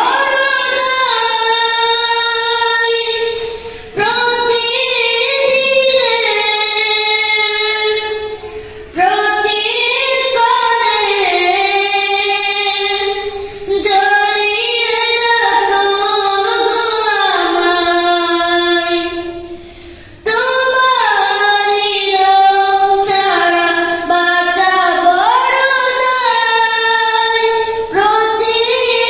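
A boy singing alone into a headset microphone: long, winding melodic phrases, each four to six seconds, with a short breath between them.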